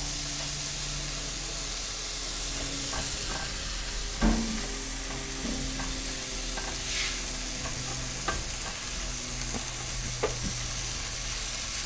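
Diced tomatoes sizzling in a hot pan of fried onions, garlic and spices as they are stirred in, with a few light knocks, the loudest about four seconds in.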